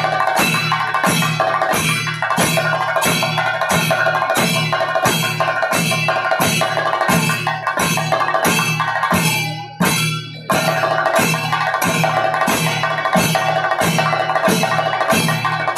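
Double thayambaka on Kerala chenda drums: two lead chendas playing fast stick strokes over steady accompanying chenda beats and ringing ilathalam hand cymbals, in an even rhythm of about two strong beats a second. The sound drops away briefly about nine and a half seconds in, then comes back.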